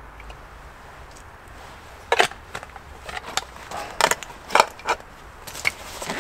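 Irregular knocks and clicks, a dozen or so sharp strikes starting about two seconds in after a faint steady hiss.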